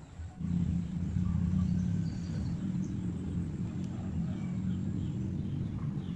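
A motor starts up about half a second in and keeps running with a steady low hum.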